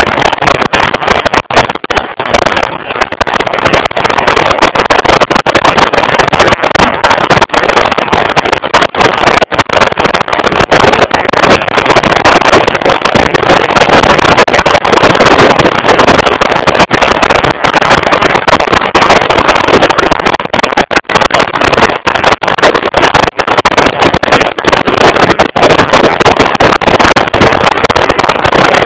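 Loud, steady roar of wind and engine from a motorcycle riding at speed, picked up by a camera mounted on the bike.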